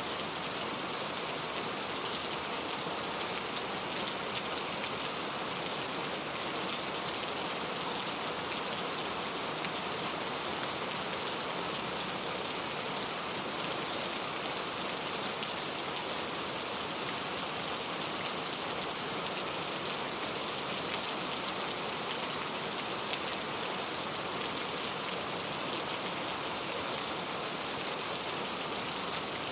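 Steady rain falling, with a dense patter of individual drops on a surface.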